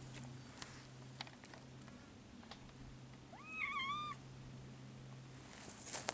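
A kitten meows once, a short call about three and a half seconds in that rises and then wavers. Faint scattered crackles and clicks are heard around it.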